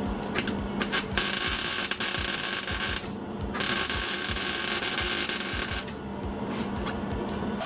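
Welding arc crackling as worn lug holes in a steel wheel rim are welded up: a few short sputters, then two steady runs of about two seconds each that stop abruptly.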